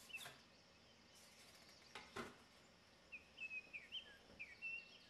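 Two soft wooden knocks as a thin maple board and a pine slat basket are set down on a wooden workbench, one just after the start and one about two seconds in. A quick run of faint, high bird chirps follows in the last two seconds, over quiet room tone.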